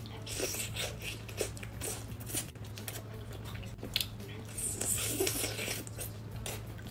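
Close-up biting and chewing of a tiaopi chicken skewer, a thick, chewy sweet-potato starch sheet wrapped with chicken: irregular soft crackles and tearing smacks of mouth noise, over a faint steady low hum.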